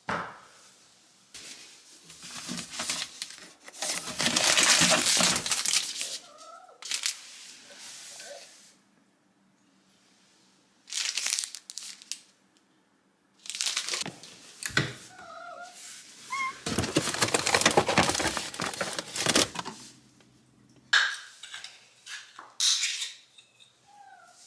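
Plastic cat-treat packet crinkling and being torn open in several loud bursts, with a cat giving a few short meows in between.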